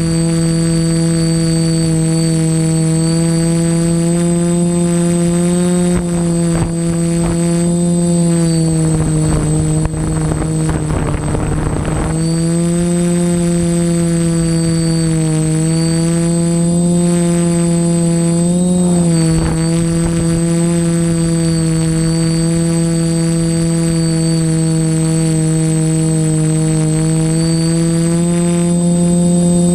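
TBS Discovery quadcopter's electric motors and propellers buzzing steadily in flight, recorded by the GoPro on board; the pitch dips and rises a little with throttle. A noisy rush of air joins it around ten seconds in.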